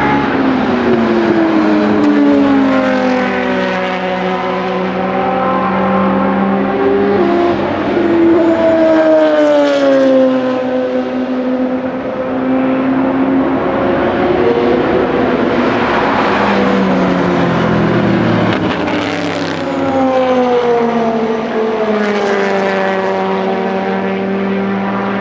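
Le Mans Series race cars, prototypes and GT cars, passing one after another at racing speed. Their engines are at high revs, several at once, and each engine note slides up and down in pitch as the car goes by and shifts gear.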